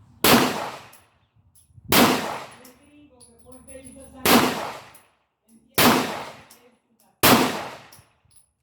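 Canik TP9SFX 9mm pistol firing slow aimed shots, five about a second and a half apart, each report trailing off in echo.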